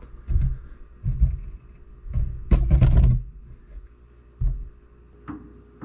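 Dull thumps and knocks, with a couple of sharp metallic clicks in the loudest cluster about halfway through: metal tools being handled while a dial indicator is set up on an open differential to check ring-and-pinion backlash.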